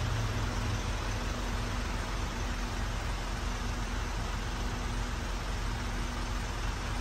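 Isuzu Elf NMR71 truck's diesel engine idling with a steady low hum, under the even rushing of the cab's air-conditioning blower.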